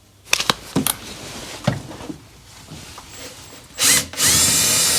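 A few light clicks and knocks of tools being handled, then, near the end, a power drill gives a short burst and starts running steadily, driving a screw through the tool cabinet's base into the plywood floor.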